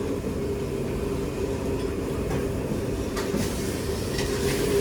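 Steady low mechanical hum and rumble of commercial kitchen ventilation, such as an extractor hood fan, with a few faint utensil clicks near the end.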